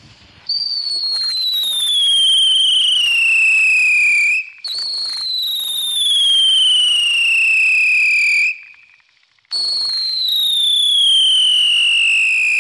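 Cannon Brand Ninja Stars Shuriken ground spinner firework whistling loudly: three long screams, each about four seconds and falling steadily in pitch. The first two come back to back, and the third follows after about a second's pause and runs on at the end.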